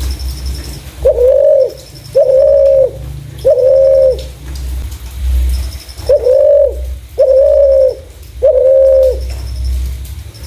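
Spotted dove (terkukur) cooing: two phrases of three long, even coos each, the first starting about a second in and the second about six seconds in.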